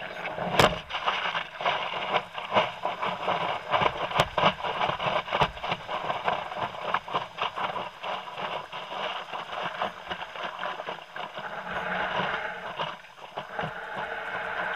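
Surf water rushing and splashing against a surfboard and its nose-mounted camera as the board rides through breaking waves, with frequent irregular slaps and spray hits.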